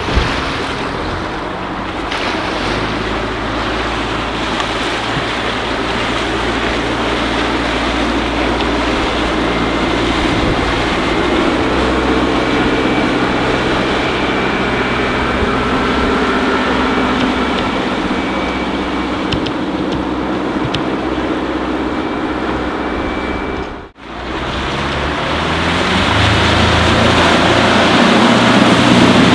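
MerCruiser 1.7 L diesel sterndrive of a Quicksilver 630 SD pilothouse boat running steadily under way, with water rushing off the hull and wind buffeting the microphone. The sound breaks off for a moment about five seconds before the end, then picks up again.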